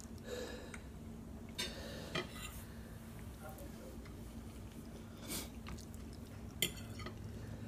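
A metal fork clinking and scraping on a ceramic plate of noodles a few times, with quiet chewing.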